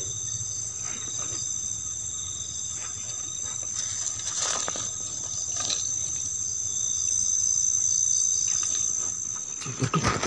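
Night insects trilling steadily with high, unbroken tones, over rustling and scraping as a mesh fishing net holding a fish is handled, louder in the second half.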